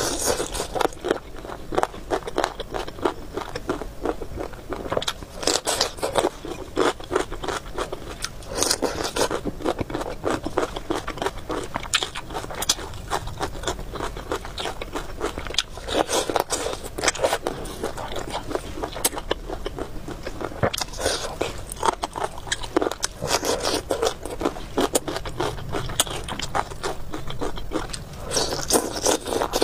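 Close-miked eating: biting and chewing with dense crunching, crackling and wet mouth clicks, coming in louder bouts every few seconds.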